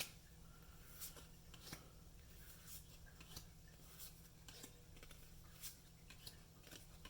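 Faint, irregular soft ticks and rustles of trading cards being handled and slid one behind another.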